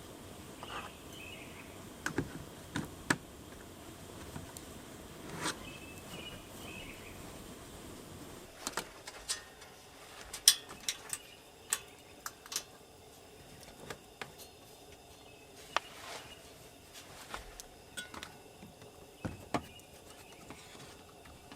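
Irregular sharp clicks and light knocks scattered through a quiet forest background, busiest in the middle, with a couple of faint bird chirps early on.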